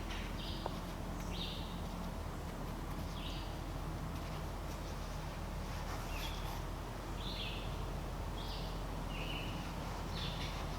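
Songbird calls: short, high chirps repeated every second or two, over a steady low background noise.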